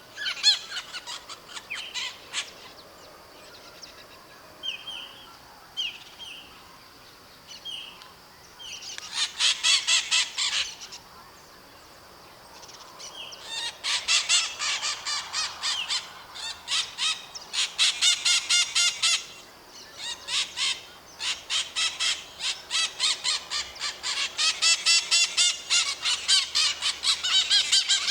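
White-eyed parakeets (maritacas) screeching: scattered single calls over the first few seconds, then bouts of rapidly repeated screeches, each lasting a few seconds, with short pauses between them.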